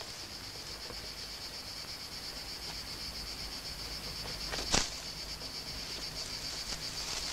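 Crickets chirring steadily in a fast, even pulse. A single short sharp noise stands out about two-thirds of the way through.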